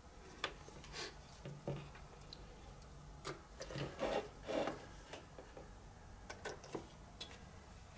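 Handling noise of test leads: scattered small clicks as the metal clips are opened and clamped onto a circuit breaker's terminal studs, with the leads' cables rubbing and dragging, most busily about halfway through.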